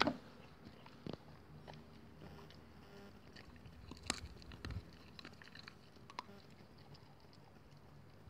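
Wheaten terrier gnawing a wooden stick, with a few sharp cracks and crunches of the wood at irregular intervals between quieter chewing.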